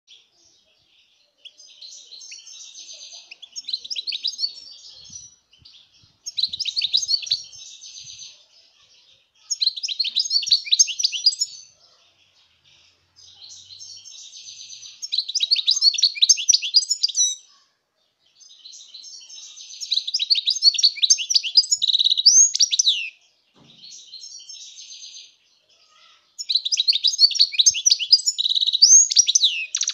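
European goldfinch singing: about seven phrases of rapid, high twitters and trills, each two to four seconds long, with short pauses between them.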